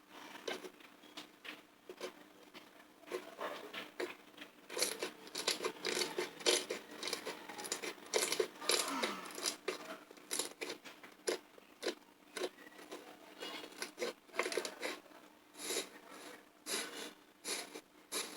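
Slime being squeezed and poked by hand, making irregular crackling clicks and squelching pops, denser from about four seconds in.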